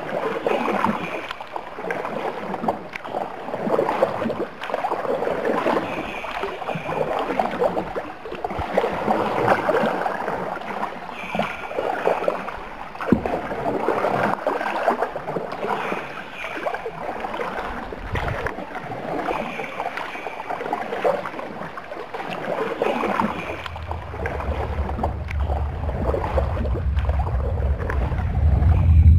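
Water splashing and rippling around a paddled wooden dugout canoe, swelling and easing every couple of seconds with the strokes. A low rumble comes in over the last few seconds.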